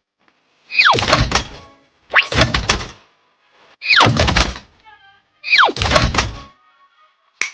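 A drop sound effect repeated four times, about every one and a half seconds: a quick falling whistle over a heavy thud each time, for the rails dropped into place one after another. A short click follows near the end.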